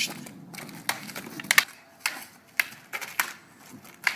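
Wooden practice swords clacking together in Thai sword (krabi krabong) sparring: about ten sharp, irregular strikes, two in quick succession near the middle.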